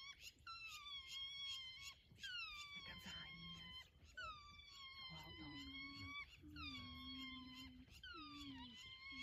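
African wild dogs giving high-pitched whining calls, each dropping in pitch and then holding, repeated about once a second and faint with distance. Lower, drawn-out moaning calls join about halfway through.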